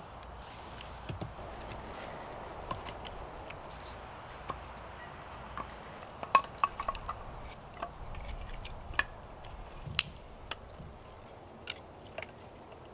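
Dry dead twigs snapping by hand and split sticks clacking as they are laid on a stacked fire lay: irregular sharp cracks and knocks, about a dozen of them, with the loudest about halfway through and a little later.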